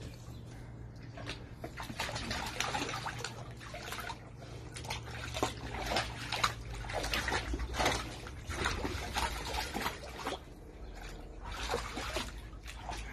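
A dog splashing and pawing in a shallow paddling pool of foamy water: irregular splashes and sloshing, with louder bursts through the middle.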